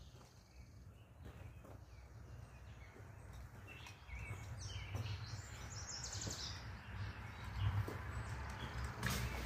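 Small birds chirping over a low steady rumble, with a few scattered soft knocks, louder in the second half.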